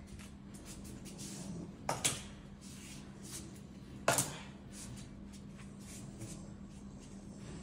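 Stainless steel dog food bowls being set down on a wooden floor: two sharp clunks about two seconds apart, the second the louder, with a few lighter knocks between.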